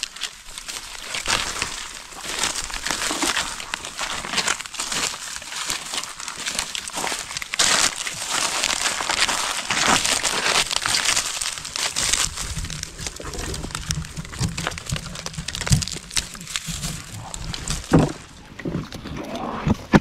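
Dry fallen leaves and brittle twigs crackling and rustling as someone handles them and moves through the leaf litter. It comes as many short irregular crunches. A low rumble joins for several seconds past the middle.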